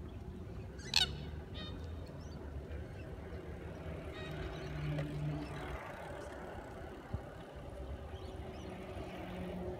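Steady low outdoor rumble with a bird's call: a short, sharp, falling chirp about a second in, and a brief low steady tone near the middle.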